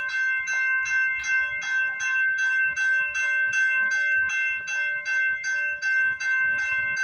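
Railway level-crossing warning bell ringing steadily at about two and a half strokes a second, each stroke ringing on into the next. The crossing signals are activated for an approaching train.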